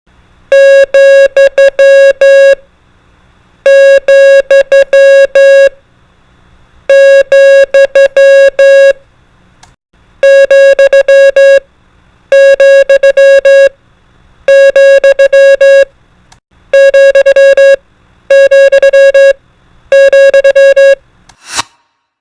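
Morse code (CW) tones: a single steady mid-pitched beep keyed on and off in short and long elements, sending a character in nine repeated groups of about two seconds each with pauses of about a second between them. A brief whoosh comes near the end.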